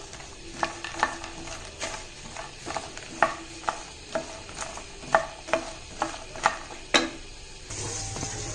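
Wooden spatula knocking and scraping against a pan as makhana (fox nuts) are stirred while they roast in ghee. The taps come irregularly, about one or two a second, over a faint sizzle. Near the end a steadier hiss comes in.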